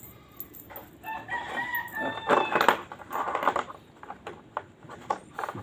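A rooster crowing: one long call lasting about a second and a half, starting about a second in. Light clicks and knocks sound around it.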